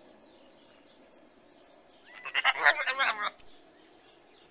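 A goat bleating once: a loud, wavering call lasting just over a second, about two seconds in.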